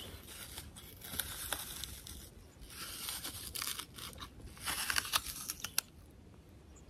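Canoe paddle strokes in water: irregular splashing and dripping, with a sharp knock near the end.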